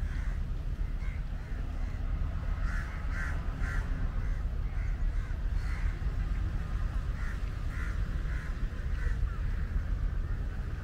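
Birds giving short calls over and over, now singly, now in quick runs of two or three, over a steady low rumble.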